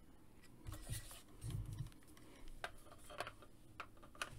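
Faint handling of a hard plastic Battlepod toy in the hands: a few scattered light clicks and rubs of plastic, with soft low bumps as it is turned.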